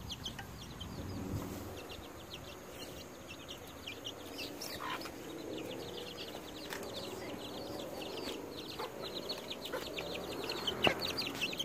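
Domestic chickens clucking in low, continuous murmurs as they forage for worms, with a fast, high chirping running underneath and a few sharp clicks.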